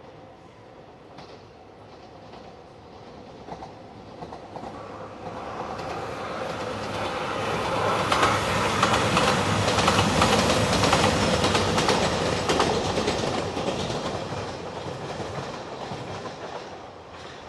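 JR Shikoku 2700 series diesel express train, three cars, passing close by. The wheels clatter over the rail joints, growing louder as it approaches, loudest about halfway through, then fading away.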